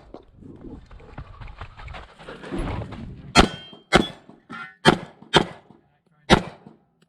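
Handgun shots fired during a pistol competition stage. About three seconds of rustling movement come first, then five shots: two quick pairs and a single.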